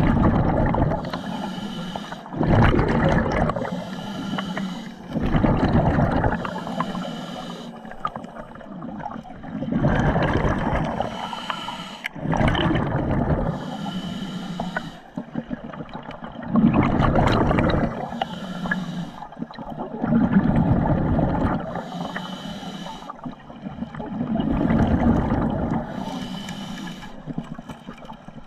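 Scuba diver breathing underwater through a regulator: a hissing inhale and a rush of exhaled bubbles, repeating every few seconds.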